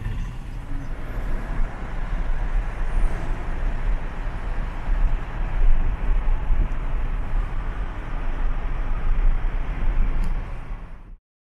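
Steady road noise of a moving car heard from inside the cabin: a heavy low rumble with tyre hiss, cutting off suddenly near the end.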